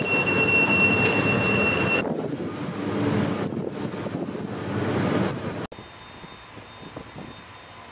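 Loud, steady machinery noise with a high whine, changing about two seconds in, then cutting off suddenly near the end to quieter wind noise.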